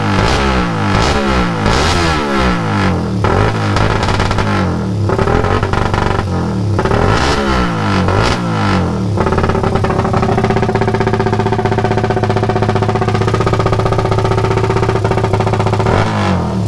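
Freshly refreshed (rebuilt) 25G racing engine on a sound check, revved in quick blips about once a second, then held at a steady speed for several seconds, then blipped again near the end.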